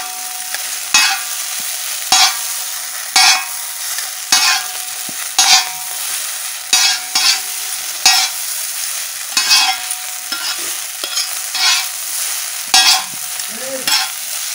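Egg chowmein sizzling on a large iron tawa as it is stirred and tossed to mix in scrambled egg, with a sharp clack of the spatula against the pan about once a second.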